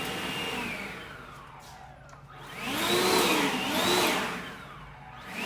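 Small electric motor whining. Its pitch and loudness swell up and drop back repeatedly, with two swells about a second apart near the end.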